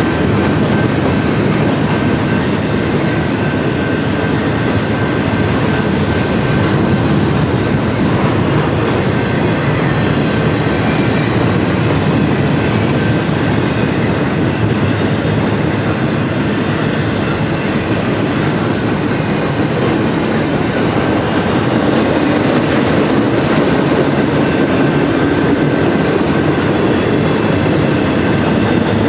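BNSF double-stack intermodal train's container well cars rolling past: a steady, loud noise of steel wheels running on the rails, with a faint thin high tone held throughout.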